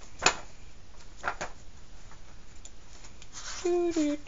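Books and paper pages being handled and swapped: a sharp tap about a quarter second in, two lighter knocks just after a second, and faint rustling of pages between them.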